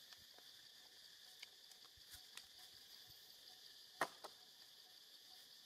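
Faint steady high-pitched insect drone in forest, with a few soft clicks and one sharp click about four seconds in.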